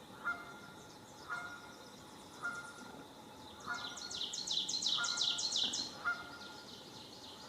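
Wild birds calling. One gives a short nasal, honk-like call about once a second, and from about three and a half seconds in a high, fast trill of chirps runs for some two seconds.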